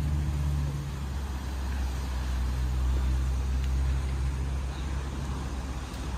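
Low steady mechanical hum, like a motor running, easing off a little after about five seconds.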